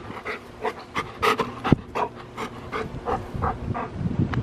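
Golden retriever panting close by, about three breaths a second, with one sharp knock about halfway through.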